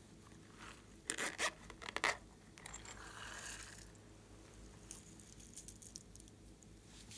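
A plastic character-shaped case being handled and opened, with a quick cluster of sharp clicks and scrapes about a second in, followed by a soft rattling hiss as iridescent flakes are shaken out of it onto a glass dish of white slime.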